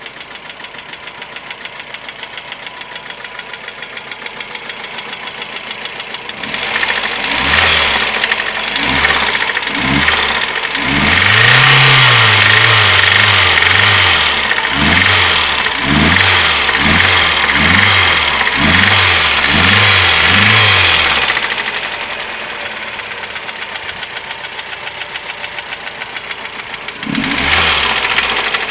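Chery Amulet petrol engine idling with a regular knock, then revved in a string of quick throttle blips with one longer rev in the middle, settling back to idle, with one more blip near the end. The source of the knock is unknown to the owner.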